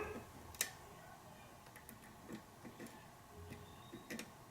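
Faint metallic ticks of a lock pick working the pins of a pin-tumbler lock during single-pin picking, with one sharper click about half a second in and a few softer ticks later.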